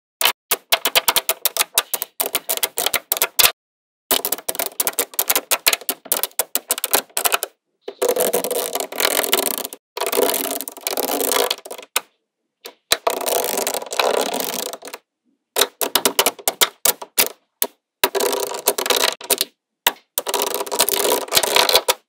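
Small magnetic balls clicking and snapping together in quick runs of sharp clicks, with several stretches of dense continuous rattling as balls are rolled and pressed against one another.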